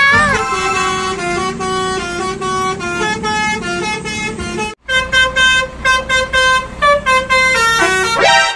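Basuri telolet bus horn playing a tune of held, stepped notes. After a short break about five seconds in, the notes turn quick and clipped, then climb near the end.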